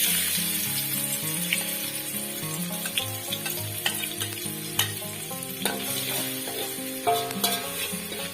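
Food sizzling loudly in hot oil in a pan, the hiss starting abruptly, with a spatula clicking and scraping against the pan as it is stirred.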